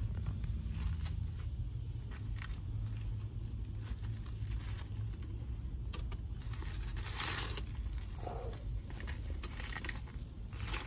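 Foil-lined paper sandwich wrapper crinkling and rustling as it is unfolded by hand, with scattered crackles and a louder rustle about seven seconds in, over a steady low hum.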